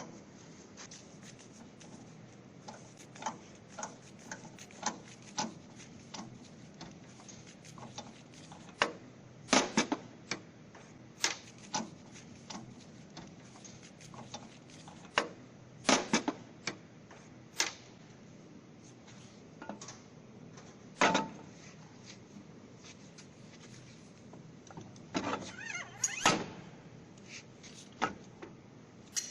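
Irregular clicks and knocks, a handful of them sharper and louder, over a faint steady low hum.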